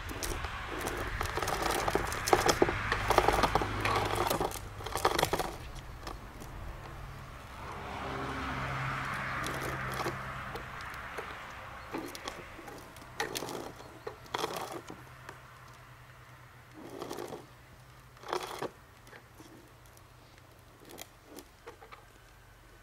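Hard plastic wheels of a toddler's ride-on toy rolling and rattling over concrete paving blocks, with clicks and knocks as they cross the joints. A smoother rolling rumble with a low hum swells around the middle, then only scattered knocks, growing quieter toward the end.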